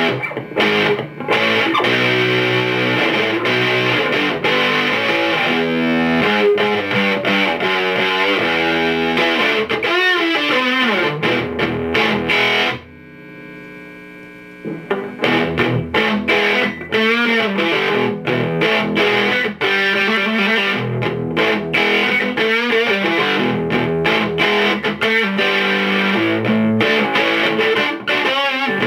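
Electric guitar played through a homemade fuzz pedal, the Kitchen Electronix Tradfuzz, giving heavily distorted notes and chords. About halfway through, the playing drops away for about two seconds to a faint sustained ring while the fuzz knob is turned, then starts again.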